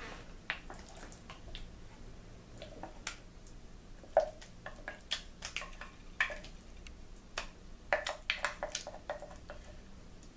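Mayonnaise being added to a bowl of tuna macaroni salad: a scatter of soft wet squelches and light clicks, busiest about eight to nine seconds in.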